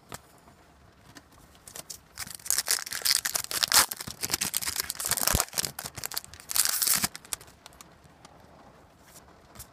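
Foil trading-card pack wrapper crinkling and being torn open, in loud, irregular crackling bursts for about five seconds, starting about two seconds in.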